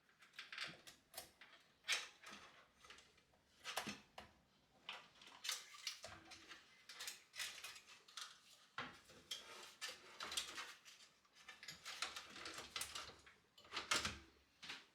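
Hands handling PC parts: irregular clicks, taps and rustles, some of them sharp, as pieces are fitted and handled.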